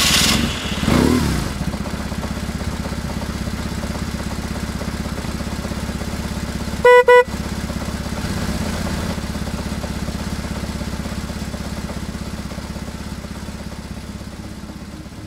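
Motorcycle engine idling with a steady throb, revved briefly about a second in. About seven seconds in, the horn beeps twice in quick succession, the loudest sound.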